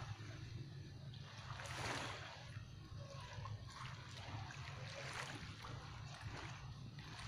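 Small waves washing and lapping against the shore in slow swells about every three seconds, over a steady low rumble.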